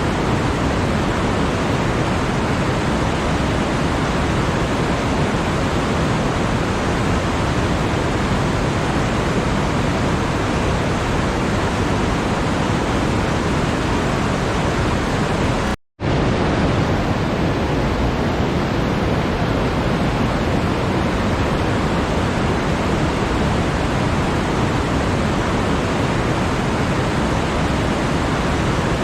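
Continuous, even rushing noise with no pitch or rhythm in it, spread from deep to high and steady in level. It cuts out in a brief gap of silence about 16 seconds in and resumes at once.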